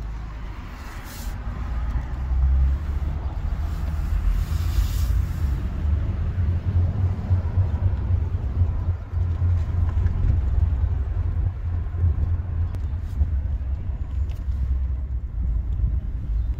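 Low, steady rumble of a car driving slowly, heard from inside the cabin. It builds over the first couple of seconds.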